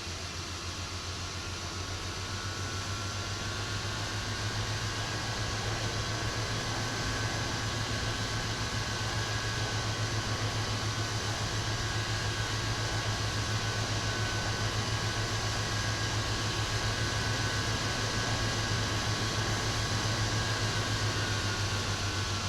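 Steady cockpit hum of an Airbus A330 standing with its parking brake set: ventilation and air-conditioning noise over a low throbbing hum, with faint high whines that drift slightly in pitch.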